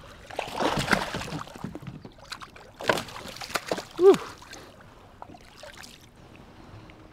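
A small blue catfish splashing and thrashing at the water's surface as it is lifted from the water beside a kayak, with scattered clicks and knocks of the fish and tackle being handled.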